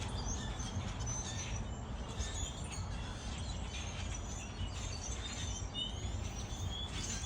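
A flock of birds calling all at once: many short, overlapping chirps and twitters, over a steady low rumble.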